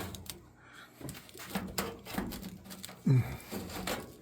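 Clattering and scraping of a metal furnace grate being worked loose and pulled out, with a short, low, downward-gliding squeal or groan about three seconds in.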